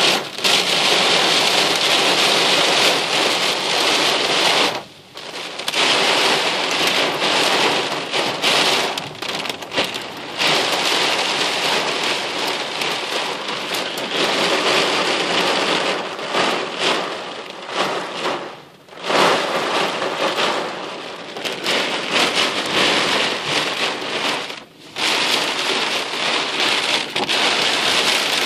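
Heavy rain pelting the roof and windshield of a car, heard from inside the cabin as a loud, dense hiss that dips sharply three times.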